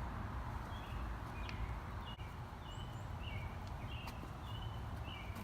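Small birds chirping over and over in short high notes against a steady low outdoor rumble, with a few faint sharp clicks.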